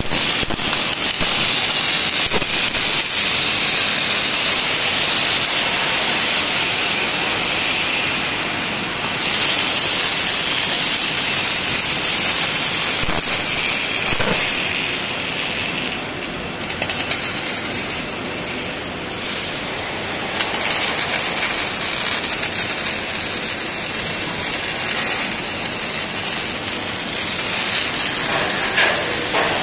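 MIG arc welding crackling and hissing steadily as a stitch weld joins a steel flange to the web of a semi-trailer main beam, with the sound easing for a few seconds past the middle.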